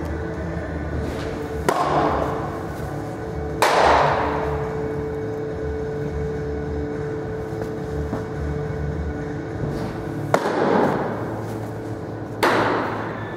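Pitched baseballs smacking into a catcher's mitt, four sharp pops, each trailing off in an echo of about a second, over a steady hum.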